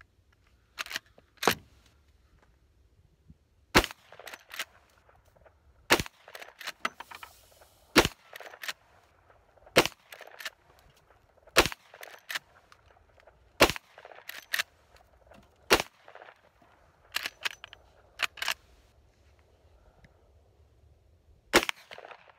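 Marlin 1894 CSBL lever-action rifle firing .38 Special rounds, nine shots about two seconds apart, with the lever clacking between shots. A longer pause with several clacks comes before the last shot, where the action has a few slight hang-ups cycling this ammunition.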